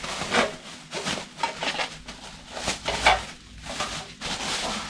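Rustling and light knocks as a portable butane camping stove is taken out of its packaging and handled, in short irregular bursts.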